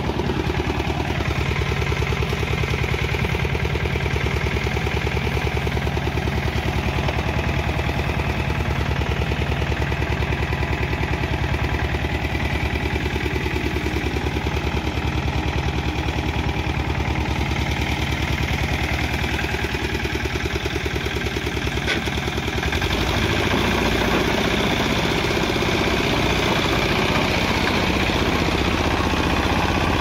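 BCS three-wheel reaper binder's Greaves 10 HP engine running steadily under load while harvesting. About 22 seconds in, the engine note changes and becomes a little louder.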